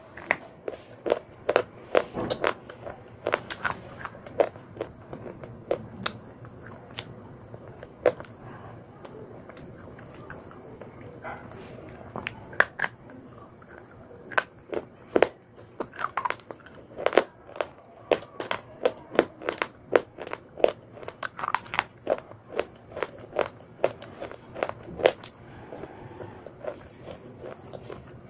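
Close-up chewing of a mouthful of slate bar: a long run of sharp, dry crunches as the hard clay is bitten and ground between the teeth, thinning out for a few seconds about a third of the way in and then coming thick and fast again.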